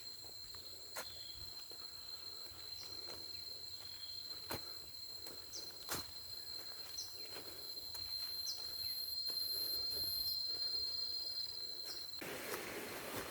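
Insects in tropical forest keep up a steady, high, single-pitched trill, with a few short chirps above it and occasional footsteps and twig snaps on the trail. Near the end the trill stops suddenly and a louder rushing noise takes over.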